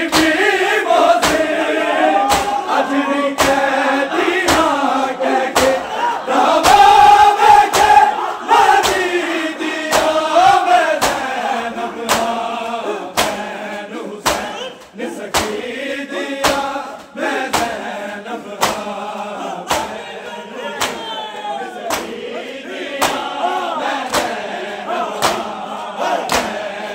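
Men's voices chanting a Punjabi noha, a Shia lament, in chorus. It is cut by steady claps of hands striking bare chests in matam, about two a second. The chanting is fullest in the first half and thins out later while the beating goes on.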